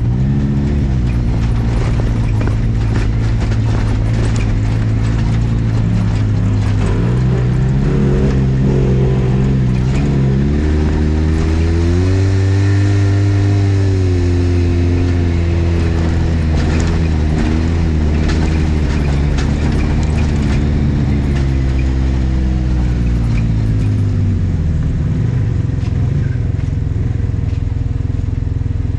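Polaris RZR XP 1000 side-by-side's parallel-twin engine running on and off the throttle, its pitch climbing and easing back several times, with scattered clicks and knocks from the ride.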